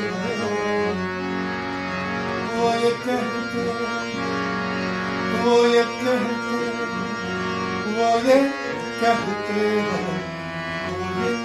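Harmonium playing an instrumental interlude between sung lines of a Hindi song, sustained reed notes with melodic phrases over them.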